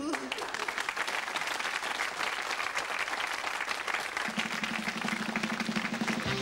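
Audience applauding after a punchline. About four seconds in, a low held musical note starts up beneath the clapping as a jingle begins.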